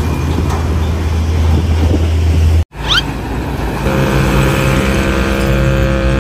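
A heavy vehicle's engine running with a deep steady hum; after a sudden break about two and a half seconds in, a short rising chirp, then from about four seconds in a steady multi-note horn blast held over the engine for about two and a half seconds.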